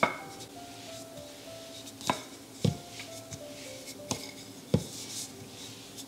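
Wooden rolling pin rolling out pastry dough, knocking against the work surface about five times, each a second or so apart. Soft background music with a slow melody plays underneath.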